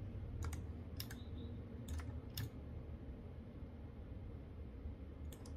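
A few sharp, irregularly spaced computer clicks, from a mouse and keyboard being used on the desk, over a faint steady low hum. Most of the clicks fall in the first two and a half seconds, with two more just before the end.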